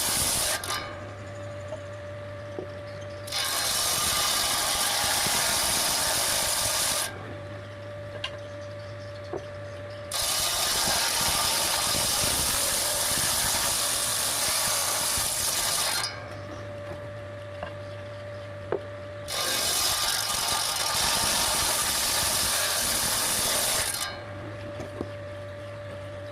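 Old-style table saw running, with a steady whine and electric hum while the blade spins free. It cuts wood in four loud, noisy passes: one ending just under a second in, then passes starting about 3, 10 and 19 seconds in, each lasting about 4 to 6 seconds.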